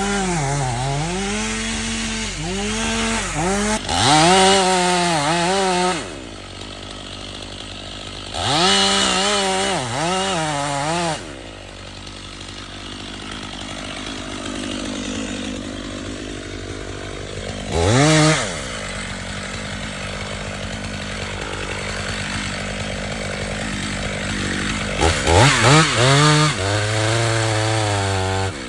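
Chainsaw cutting pine, revving up in several surges that dip and recover under load, and dropping back to a lower, steadier running speed between cuts, with a long stretch of lower running in the middle.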